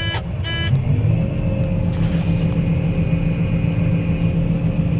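John Deere 9500 combine heard from inside the cab: two short electronic beeps in the first second, then the engine and machine drone grows a little louder and holds steady with a faint high whine.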